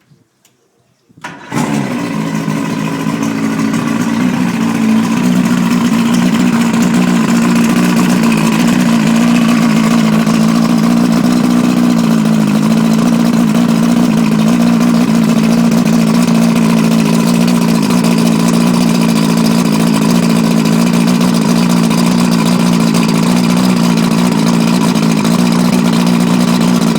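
115 hp Johnson outboard motor catching abruptly about a second in, then running steadily at an even speed.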